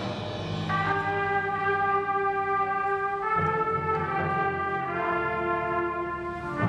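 School concert band playing a slow passage in which the brass holds sustained chords that change every second or two. A percussion stroke lands at the start and another at the end.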